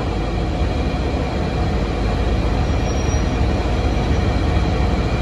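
Steady low rumble inside the passenger cabin of a 2006 NABI 40LFW transit bus, from its Cummins ISM six-cylinder diesel engine and running gear as the bus moves slowly forward.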